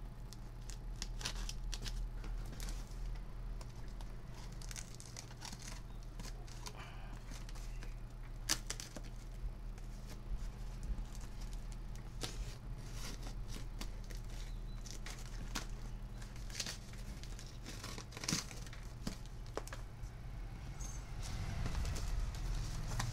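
Packing tape being peeled and ripped off a cardboard shipping box, with crinkling of plastic and cardboard as the flaps are pulled open; several sharp rips stand out. A steady low hum runs underneath.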